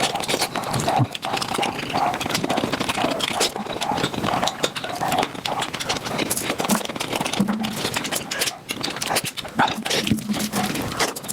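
Close-miked eating sounds of mutton nalli sped up about five times: a rapid, pitched-up stream of chewing, lip-smacking and slurping clicks with short squeaky blips.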